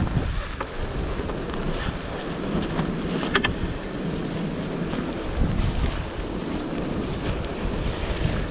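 Wind buffeting the microphone: a steady low rushing noise, with a few sharp clicks, the clearest about three seconds in.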